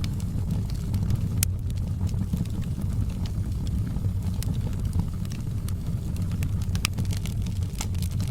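Wood fire burning with a steady low rumble and scattered sharp crackles and pops, a few of them louder.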